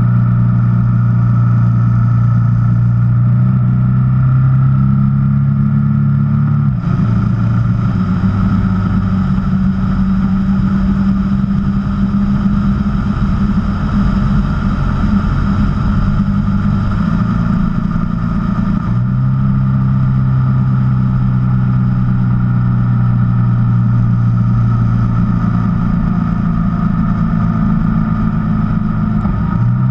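Honda VFR1200X Crosstourer's V4 engine running steadily under way, its pitch stepping abruptly a few times as with gear changes of its dual-clutch transmission, over a steady hiss of wind and road noise.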